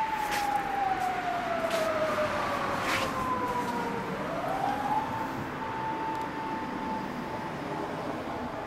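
Emergency vehicle siren wailing: a single tone slides slowly down over about four seconds, swings back up quickly and holds. Three short knocks come about a second apart near the start.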